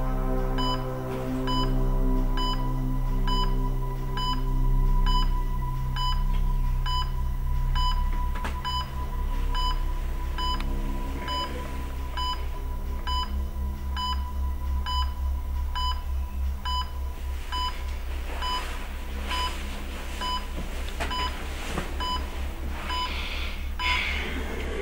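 Hospital patient monitor beeping at a steady, even pace, one high tone per beep, over a low, droning music score that takes on a fast, pulsing bass from about eight seconds in.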